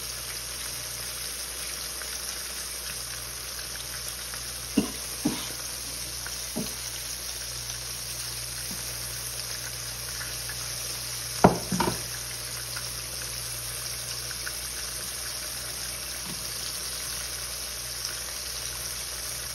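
Breaded chicken tenders deep-frying in hot oil in a cast-iron skillet: a steady sizzle. A few short knocks come about five seconds in, and a louder pair a little past halfway.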